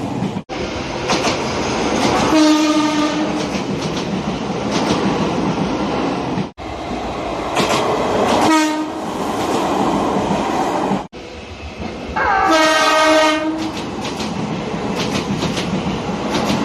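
Nagano Electric Railway local train sounding its horn: three single steady blasts, the first and last about a second or more long, the middle one short. Under them runs the rumble and wheel clatter of the moving train, and the sound cuts off abruptly between the three recordings.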